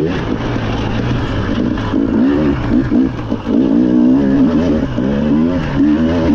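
Rally car engine running hard, its pitch rising and falling again and again as it revs through the gears.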